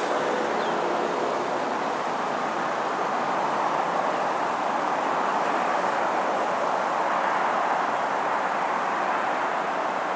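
Steady rushing noise with no clear engine note or knocks.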